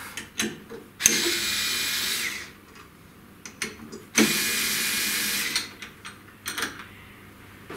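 Cordless driver running in two short bursts of about a second and a half each, backing out the clamp screws on a CNC router's spindle mount, with a few light clicks of the bit and tool between the runs.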